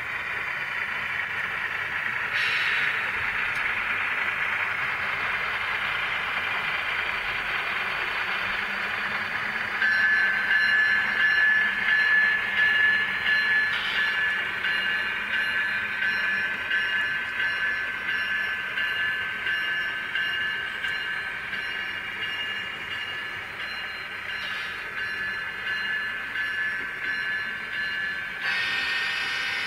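Model hopper train rolling past on the layout track, its wheels giving a steady rolling rush. A high, steady whine joins in about a third of the way through and fades near the end.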